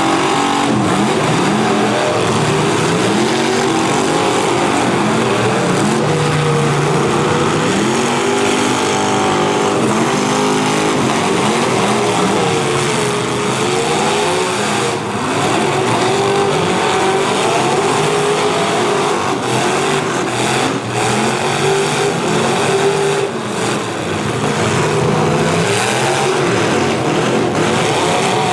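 Several demolition derby cars' V8 engines revving up and down over and over, overlapping one another, with a few sharp knocks from the cars colliding.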